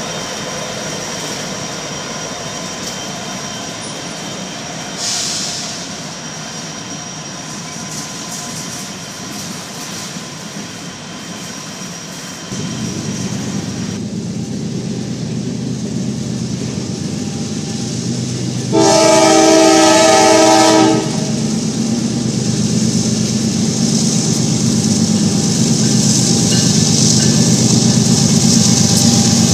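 A freight train passes close by: Norfolk Southern diesel locomotives running at first, then freight cars rolling past with steady wheel-on-rail noise, louder after about twelve seconds. A little past the middle a locomotive horn blows once for about two seconds, the loudest sound.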